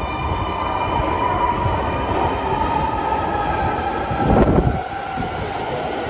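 Subway train pulling into an underground platform. Its running whine falls slowly in pitch as it slows, and there is a loud rush of noise about four seconds in.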